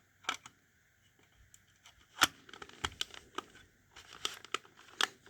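Handling noise from a smoke alarm having its battery fitted: a run of irregular plastic clicks and rustling, the loudest click about two seconds in.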